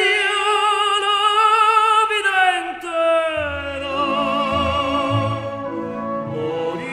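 Operatic tenor voice singing a zarzuela romanza with orchestral accompaniment. He holds a long note with wide vibrato, slides down to a lower note about two seconds in and sustains it, while low orchestral parts come in about halfway.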